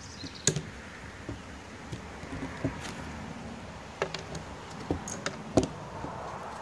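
Aluminium trekking poles and their plastic clips being handled on a wooden table: a series of irregular clicks and knocks, with two sharper, louder knocks about half a second in and near the end.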